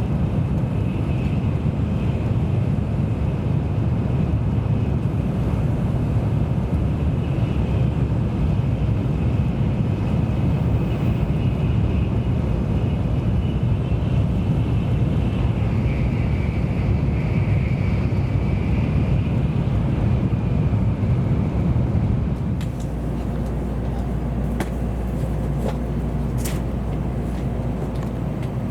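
A train running, heard from inside the carriage: a steady rumble with a faint high whine over it. About 22 seconds in it turns a little quieter, with a low hum and a few sharp clicks.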